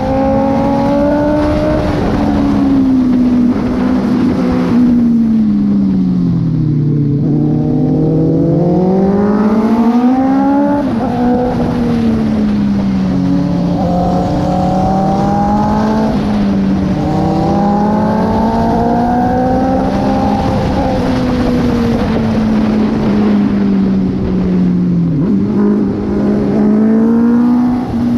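Honda CB650R inline-four motorcycle engine under way, its revs rising and falling every few seconds as the throttle is opened and closed through the bends, with wind rushing over the microphone.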